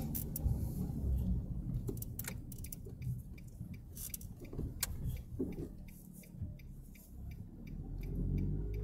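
Car cabin noise while driving: a low engine and road rumble with irregular light clicks and rattles.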